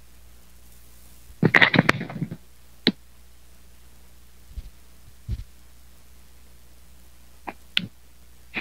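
Microphone handling noise: a burst of rustling and clicks about a second and a half in, then scattered single clicks and two dull knocks, over a faint steady hum.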